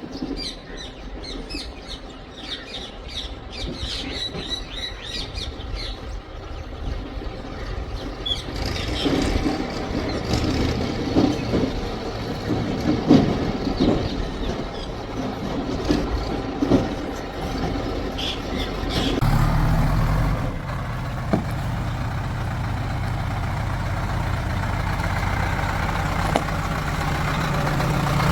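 Diesel engines of a backhoe loader and tractors running at work. There are scattered knocks in the middle, and a steadier, louder engine note sets in about two-thirds of the way through. Birds chirp in the first few seconds.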